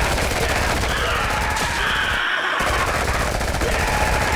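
Rapid, sustained gunfire from a film soundtrack, one shot after another with no break, like a machine gun firing continuously.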